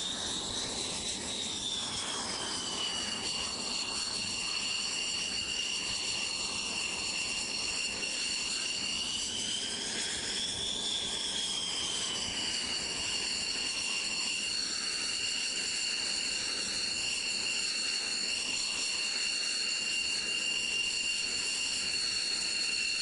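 Northrop Grumman X-47B's turbofan engine running at idle: a steady high-pitched turbine whine over a rushing noise. The whine's pitch swells up and back down twice, near the start and about ten seconds in.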